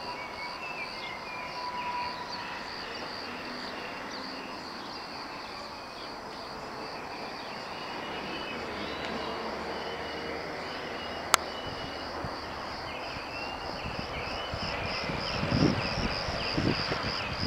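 Crickets chirping in an even, pulsing trill, with short higher chirps over it. A single sharp click comes about eleven seconds in, and gusts of wind rumble on the microphone near the end.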